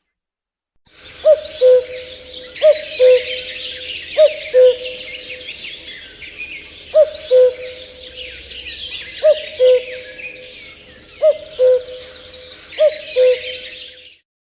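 A bird calling a two-note hoot, the first note higher and the second lower, seven times over, against a dense chorus of small birds chirping. The recording starts about a second in and cuts off suddenly near the end.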